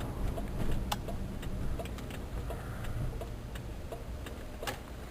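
Worn brakes on a 1994 Cadillac DeVille ticking about twice a second as the wheels turn, over a low road and engine rumble heard from inside the car; the driver takes the noise as a sign the brakes are done.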